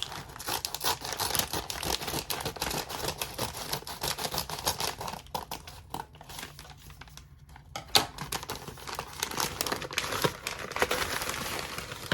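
Packaging being torn open and crinkled by hand: a continuous crackling rustle full of small clicks, with one sharper snap about two thirds of the way through.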